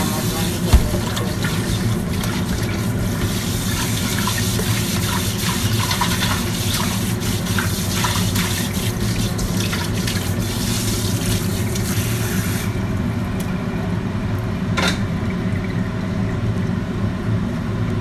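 Water running from a kitchen tap into a metal wok, with knocks and clattering as the wok is handled, until the tap shuts off after about thirteen seconds. A steady low hum runs underneath.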